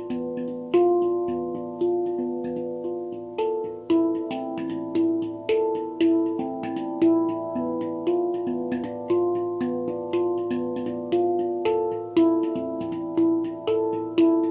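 Baopan handpan tuned to a low A2, played with the fingers: a continuous flow of struck steel notes that ring and overlap as they decay, with quick light taps between louder accented strokes about once a second.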